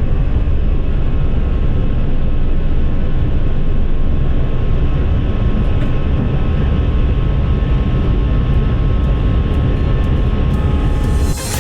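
Airbus A319 jet engines at takeoff power, heard from inside the cabin as a loud, steady, deep rumble. Music comes in just before the end.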